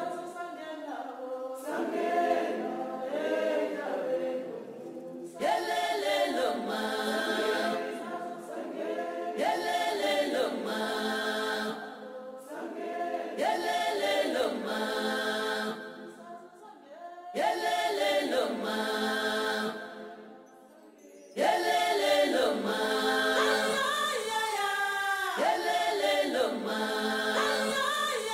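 Soundtrack music: a choir singing unaccompanied, in long sung phrases broken by short pauses.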